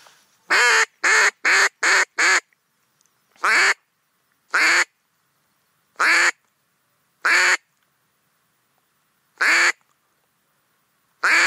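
Ketner teal duck call blown close to the microphone, loud quacks to lure teal: a quick run of five short quacks, then single quacks every second or two.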